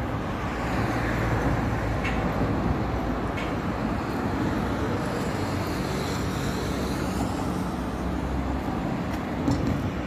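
Steady rush of road traffic from cars driving along a wide multi-lane road.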